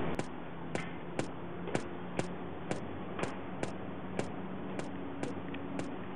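Sharp ticking clicks, about two a second and slightly uneven in spacing, over a steady low hiss.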